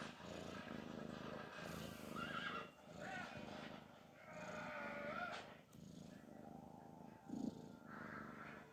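A cat snoring with a steady low rumble. A few faint high tones glide up and down over it.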